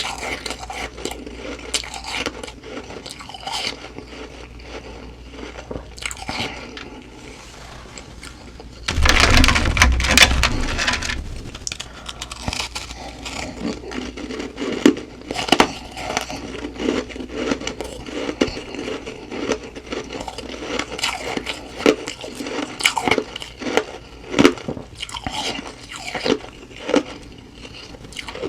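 Close-up biting and chewing of humidifier frost, a dense run of crisp, irregular crunches. About nine seconds in comes a louder burst of crunching, lasting a couple of seconds.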